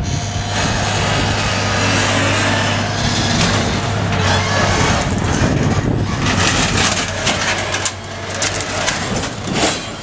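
Excavator's diesel engine running steadily under load while it moves and sets down a pickup truck, with metal clanks and rattles in the last few seconds and one louder clank near the end.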